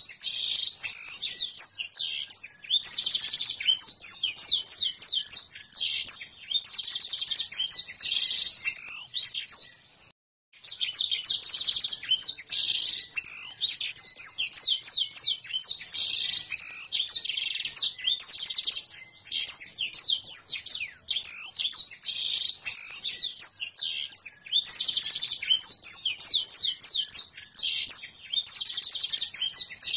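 Domestic canary singing a long, fast song of rapid high trills, buzzy rolls and sharp chirps, the styles Indonesian bird keepers call konslet and ngentrok. The song stops for a moment about a third of the way in, then carries on.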